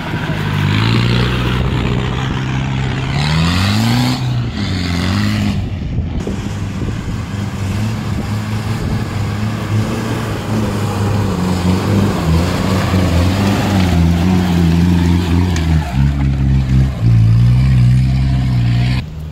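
Off-road 4x4 engines, a Land Rover Discovery's first, labouring and revving as they climb a rutted dirt track, the engine note rising and falling with the throttle. The sound breaks off abruptly a few times where one clip cuts to the next.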